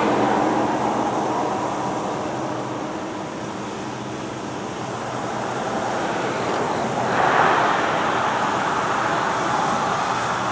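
Steam locomotive 643, a 2-10-0, working as its train approaches: a steady rush of exhaust and running noise that dips about four seconds in and swells again about seven seconds in.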